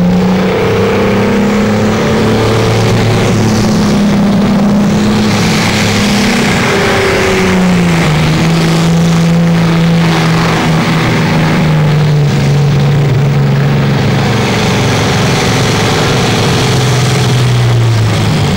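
A Pro Stock pulling tractor's diesel engine running hard at high revs under full load as it drags the weight sled. The engine note steps down about eight seconds in and sags lower near the end as the load builds.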